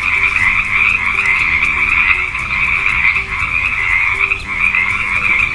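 A chorus of frogs croaking, many calls overlapping into a steady, unbroken din.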